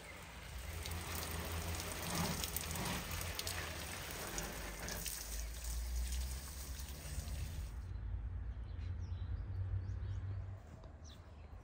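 Water trickling and splashing, a noisy hiss of many small drops that thins out abruptly about eight seconds in and gets quieter near the end.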